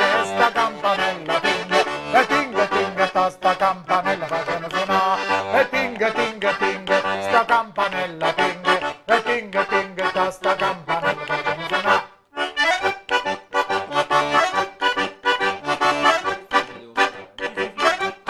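Diatonic button accordion (organetto) playing a tune solo, with melody notes over a steady bass. It breaks off briefly about twelve seconds in, then resumes with shorter, choppier notes.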